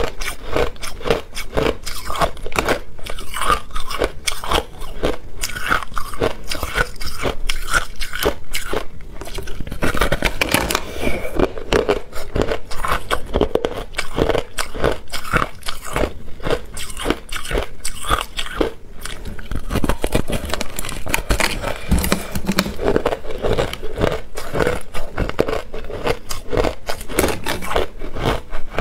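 Biting into and chewing a frozen mound of crushed ice: a continuous run of rapid, crisp crunches.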